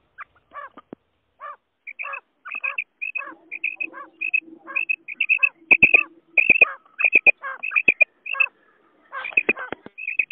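Quail (batair) calls: short, sharp notes repeated several to the second, overlapping as if from more than one bird, and growing denser midway.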